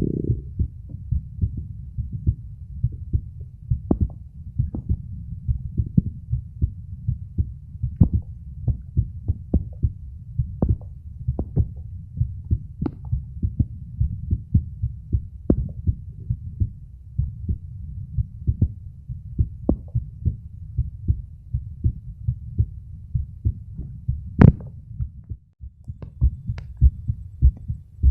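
An adult man's heartbeat picked up by a phone microphone held against his bare chest: steady, regular low thuds beat after beat. A little before the end there is one sharper, louder knock and a brief drop-out, as the phone is shifted on the chest.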